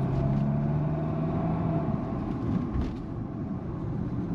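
Fiat Toro's diesel engine running while the truck is driven, with road rumble underneath; the steady engine hum fades about two seconds in.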